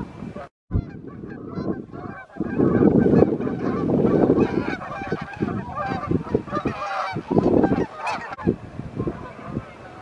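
A flock of Canada geese honking, many calls overlapping continuously. About half a second in, the sound cuts to silence for a moment before the honking resumes.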